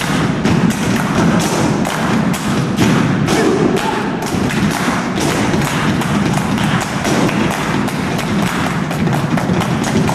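Body percussion by a troupe of performers: hand claps, chest and thigh slaps and boot stomps on a stage floor, in a fast repeating rhythm.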